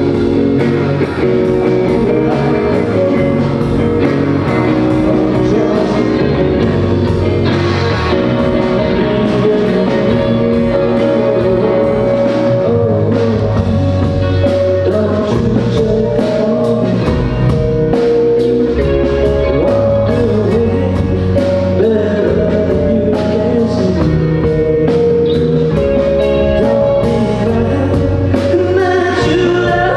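A live rock band playing a song through the PA: drum kit keeping a steady beat under electric guitar and bass, with singing coming in near the end.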